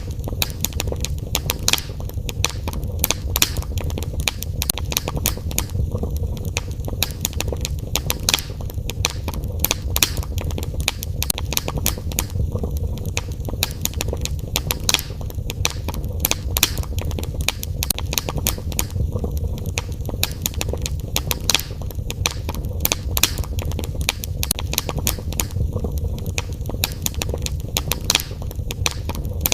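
Fire in a fireplace crackling, with many sharp pops and snaps over a steady low rumble.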